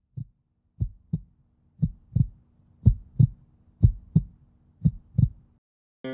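Heartbeat sound effect: low double thumps, about one pair a second, over a faint low hum. Music comes in at the very end.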